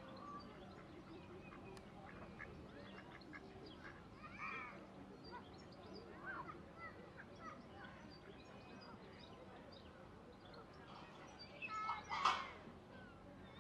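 Ducks quacking and small birds calling around a pond, faint and scattered, with one louder harsh call near the end.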